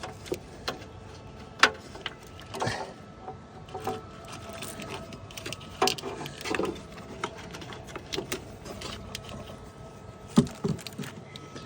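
Irregular clicks, taps and rustles of hands working an LED tail light's plastic wiring plug and cord, with two sharper knocks, one about a second and a half in and one near the end.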